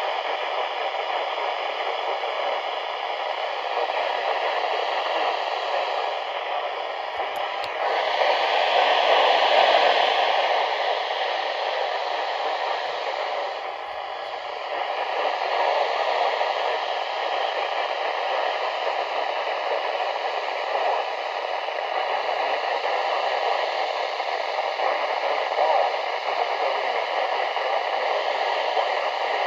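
Steady radio static hiss, swelling louder about eight to ten seconds in, with a click about seven seconds in.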